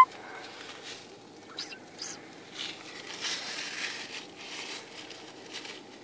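Soft rustling and a few faint clicks of plastic poly pellets shifting inside a corduroy I Spy bag as it is handled, over steady low background noise.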